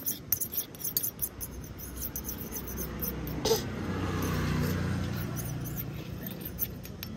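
A small metal spoon scraping and clinking in a miniature stainless-steel toy pan, a quick run of clicks in the first second or so. Through the middle a low hum swells and fades, with one sharper click partway through.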